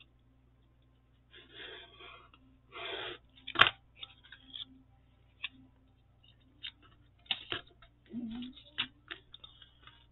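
Paper pieces being handled and pressed together while gluing: soft rustling and rubbing of paper on a cutting mat, with a few light taps and clicks, the sharpest one about three and a half seconds in.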